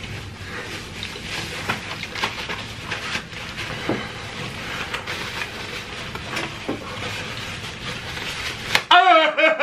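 A paper napkin crinkles and rustles as it is rubbed over a face close to the microphone, with many small clicks and crackles. About nine seconds in, a person's voice starts a loud, drawn-out, wavering moan.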